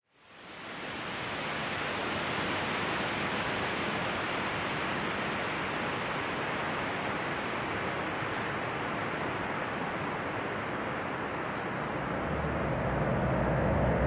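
Steady static-like noise from the show's electronic soundtrack, fading in within the first second and holding level. Near the end a low drone rises beneath it and grows louder.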